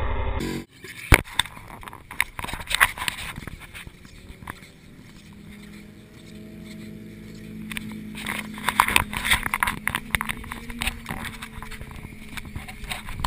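Scuffing, knocks and rustling from a camera being carried and handled as its wearer walks across grass, with a low steady hum beneath in the second half. The handling is busiest from about two seconds in and again from about eight seconds in.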